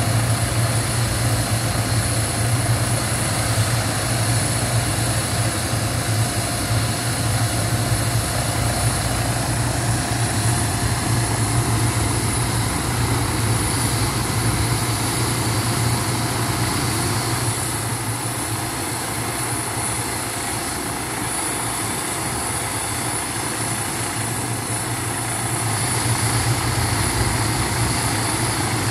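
Small turbine helicopter running on the ground before lift-off: a steady high whine over a low, even rotor hum, easing off slightly in level for a few seconds past the middle.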